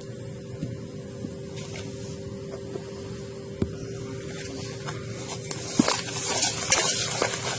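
Fork beating eggs and white sugar by hand in a bowl, the tines clicking and scraping against the bowl now and then, then busier and louder over the last two seconds or so. A steady low hum runs underneath throughout.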